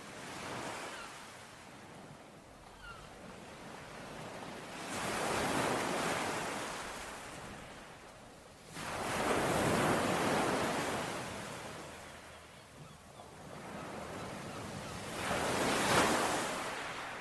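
Ocean waves breaking and washing on the shore in three swells, one coming in sharply about nine seconds in and another near the end.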